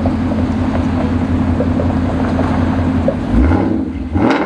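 Ford Mustang GT's 5.0-litre V8 running through an X-pipe exhaust with a loud, steady rumble. About three and a half seconds in, the engine note rises briefly. A short sharp sound comes near the end.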